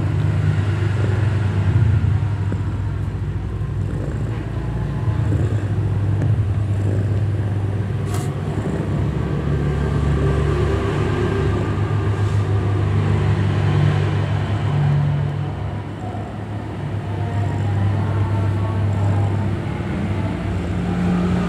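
Mother cat purring steadily while her newborn kittens nurse: a continuous low, pulsing rumble that dips and resumes a few times.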